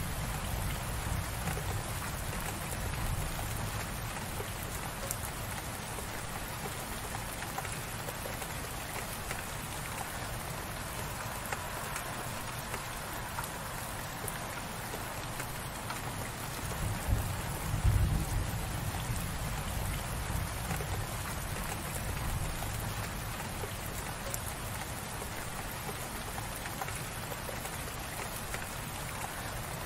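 Gentle, light rain falling steadily, a dense even patter of drops. A deep low rumble swells briefly near the start and again about two-thirds of the way through.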